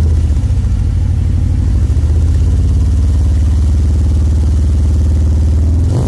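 Harley-Davidson Electra Glide Standard's Milwaukee-Eight V-twin running steadily through Vance & Hines Power Duals headers and Torquer 450 slip-on mufflers, a loud, even exhaust note.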